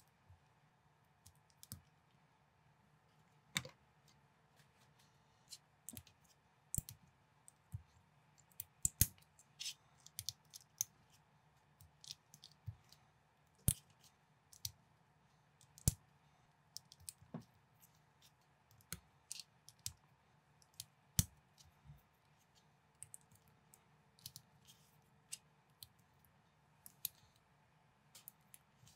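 Small LEGO-compatible plastic bricks being handled and pressed together by hand: irregular sharp clicks and snaps, about one or two a second.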